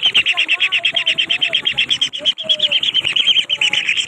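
Young birds begging to be fed: a fast, even string of high, shrill calls, about ten a second, with a lower wavering call beneath them in the first half.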